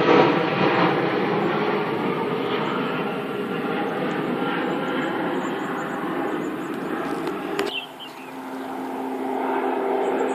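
Jet airliner engines as a loud, rushing roar that slowly fades as the plane moves away. About three-quarters of the way through it cuts off abruptly, giving way to a quieter, steadier hum with a low drone.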